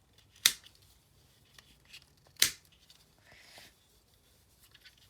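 Plastic twisty puzzle being turned by hand: two sharp clicks, about two seconds apart, with a faint rustle and a few small ticks of handling between them.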